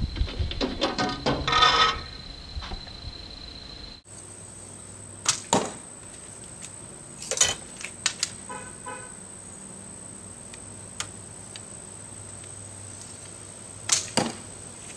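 Arrows from a homemade PVC recurve bow striking a foam archery target: a cluster of sharp hits in the first two seconds, then single sharp hits spaced out through the rest, the last about fourteen seconds in.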